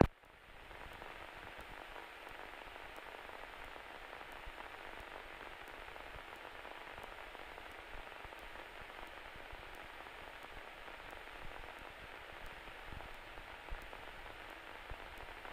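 Steady hiss of an aircraft intercom and radio audio feed between transmissions, with a few faint clicks.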